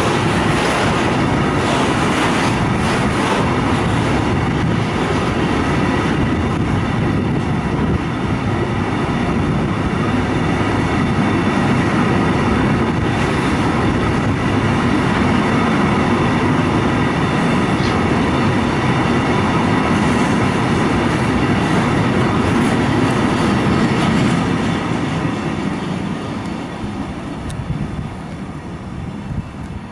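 Container freight train rolling past on the rails: a steady, loud rumble and clatter of wagon wheels. It fades away over the last few seconds as the final wagons pass.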